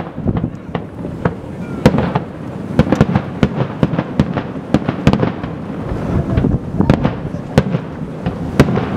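Aerial firework shells bursting one after another at irregular intervals: sharp bangs and cracks over a continuous low rumble.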